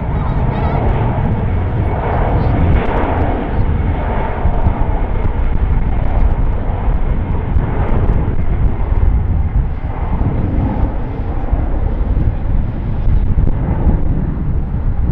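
Twin jet engines of a Boeing 767 running on the runway: a loud, steady, deep rumbling roar.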